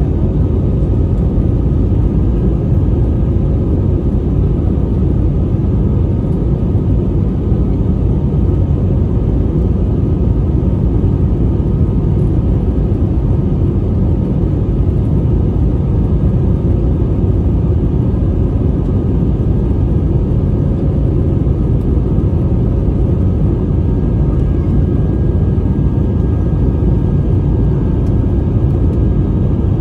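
Steady low rumble of an Airbus A320-family jet airliner in flight, heard inside the cabin: engine and airflow noise with faint, even whining tones above it.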